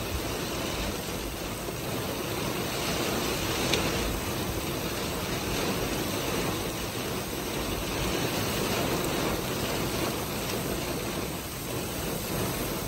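Torrential rain pouring down in a steady, even rush.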